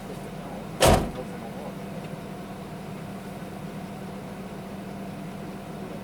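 Steady low hum of a van's engine, with a single sharp, loud thump about a second in.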